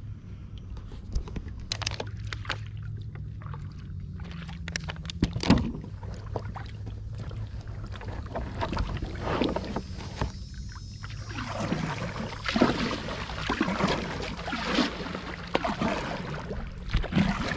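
Kayak paddles dipping and pulling through calm water, with splashes, drips and a few sharp knocks, the loudest about five seconds in. The splashing grows busier from about halfway through, over a steady low hum.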